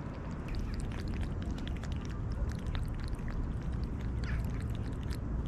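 Young kittens mewing in short, thin high squeaks, a few at a time, over a steady low rumble.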